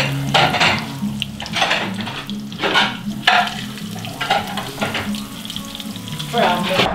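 Breaded cutlets sizzling as they fry in shallow oil in a frying pan, with the hiss swelling and easing as they are turned with tongs.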